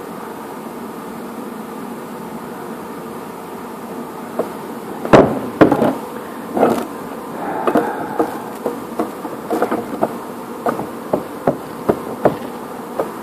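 Metal parts of a homemade plastic shredder knocking and clinking as they are fitted into its frame by hand. After about four seconds of only a steady background hum comes a string of sharp, irregular knocks, loudest in the first few.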